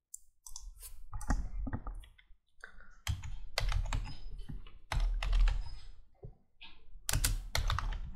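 Typing on a computer keyboard: many quick key clicks in uneven runs, with short pauses between them.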